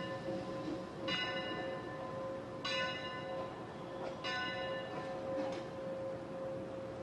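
Steam locomotive's bell ringing slowly, struck four times about a second and a half apart, each note ringing on until the next.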